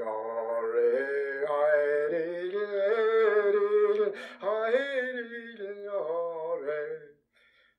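A recording of a man singing a Gaelic song solo and unaccompanied, holding long, slowly moving notes, with a short break for breath near the end.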